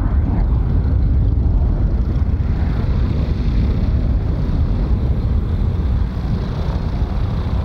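Aircraft engines running, a loud steady rumble with a hiss that builds a little from a few seconds in.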